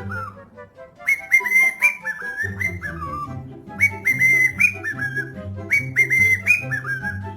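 Background music: a bouncy whistled tune over a plucked bass line and a light beat, the same short phrase looping about every two and a half seconds.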